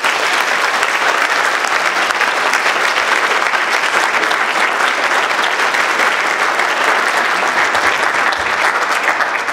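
Audience applauding: dense, steady clapping that begins to die away at the very end.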